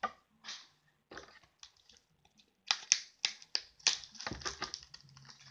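Packaging being handled: a run of sharp crackles and clicks, thickest a little past the middle, as art brushes are taken out of their wrappers.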